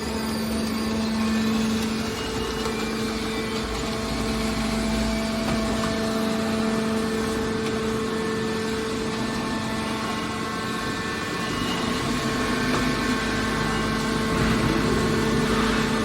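Hydraulic scrap-metal baler running: a steady machine hum with a constant low drone and a higher held tone over a haze of mechanical noise, slightly louder near the end.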